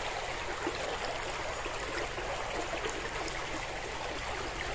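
River water running steadily, a continuous even rush with no breaks.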